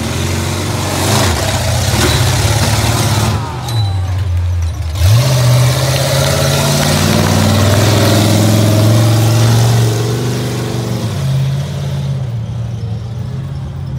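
Earthquake monster truck's engine revving hard under throttle. The revs dip about four seconds in, then climb sharply and hold high for several seconds before easing off about ten seconds in.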